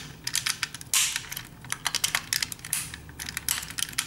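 Small plastic clicks and taps from handling the Kenner M.A.S.K. Firecracker toy pickup and seating its detachable plastic spare tire on the truck bed, irregular and quick, with a sharper click about a second in.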